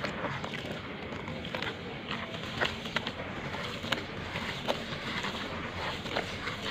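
Brittle chunks of dried brown sand crumbling and breaking apart, with irregular crisp crackles and snaps over a steady gritty rustle.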